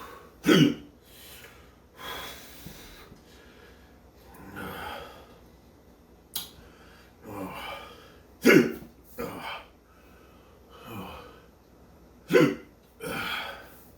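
A man hiccuping hard, three loud sharp hiccups several seconds apart, with heavy breathing in between. The hiccups are brought on by the burn of super-hot chili.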